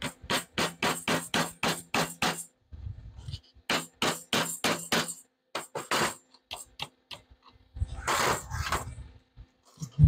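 Steel hammer driving nails into a pallet-wood frame: a quick run of about nine blows, about four a second, then a second run of about six after a short pause, followed by a few lighter taps. Near the end comes a longer rough rustling noise.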